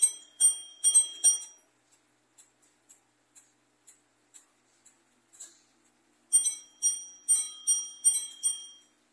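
Antique French Comtoise (Morbier) longcase clock striking its bells as its hands are moved: four ringing strikes at the start, a few seconds of the movement ticking about twice a second, then six more ringing strikes.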